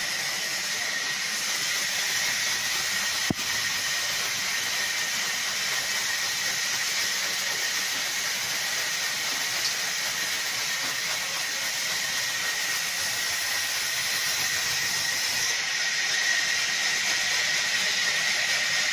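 Sawmill band saw running and cutting lengthwise through a log, a steady hissing whine that holds even throughout. There is one sharp click about three seconds in.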